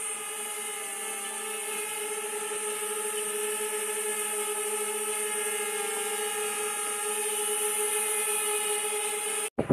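Small quadcopter drone in flight, its propellers giving a steady buzzing whine with a high hiss. It grows gradually louder as the drone comes closer.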